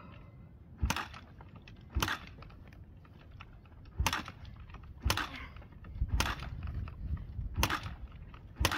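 Yamaha TT-R125LE dirt bike being kick-started over and over: about seven sharp kicks of the kick-start lever, one to two seconds apart, with the engine not catching. The rider blames a choke that keeps falling down.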